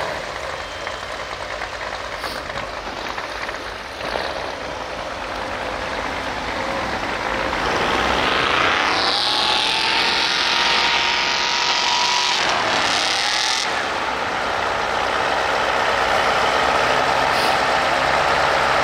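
Off-road vehicle engine running while driving through snow, growing louder about halfway through with a brief sweep in pitch.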